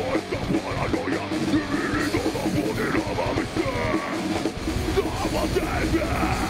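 Live heavy metal band playing, with dense distorted music, pounding drums and yelled vocals.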